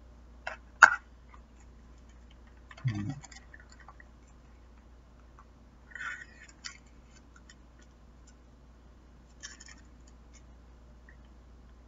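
Eating and handling sounds at a table: a sharp click about a second in, a brief low mouth sound near three seconds, then scattered chewing and faint clicks and rustles from the food and its container.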